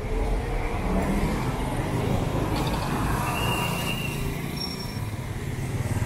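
Street traffic noise: a car engine running close by under a steady low rumble of city street sound, with a brief high thin tone a little past halfway.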